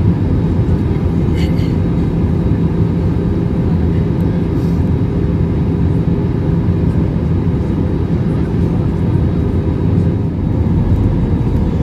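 Cabin noise inside an Airbus A321-200 descending on approach to land: a steady low rumble of engines and airflow with faint steady hums, easing slightly near the end.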